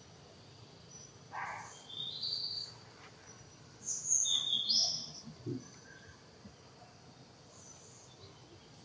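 Several short, high-pitched chirping calls over a faint background hum. The loudest cluster comes about four seconds in, with a lower, briefer call shortly before it.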